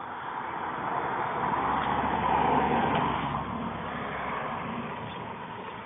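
A car driving past on the street: a noise that swells to its loudest about two and a half seconds in, then slowly fades away.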